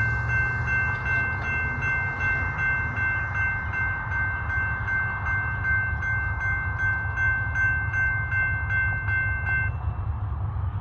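Railroad crossing warning bell ringing in rapid, even dings, about three a second, as the crossing gates come down to warn of an approaching train. It stops near the end, over a steady low rumble.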